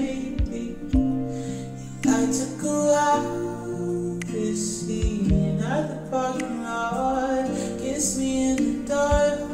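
Background music: a gentle track with plucked guitar and a few soft low drum hits.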